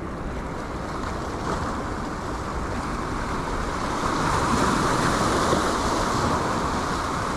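Sea waves breaking and washing over shoreline rocks, a steady rush that swells a little about four seconds in.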